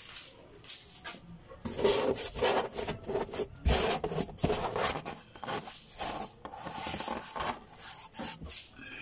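Rough scraping and rubbing on wood in irregular strokes, loudest through the middle and fading near the end.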